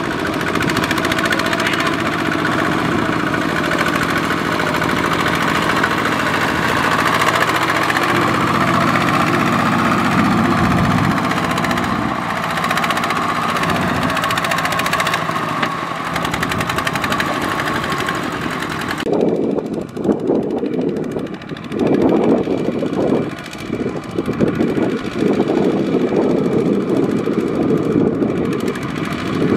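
Single-cylinder diesel engines of two-wheel walking tractors (Kubota power tillers) running under load while hauling rice-laden trailers through deep mud. About two-thirds of the way in the sound changes abruptly to a lower, uneven chugging that swells and drops.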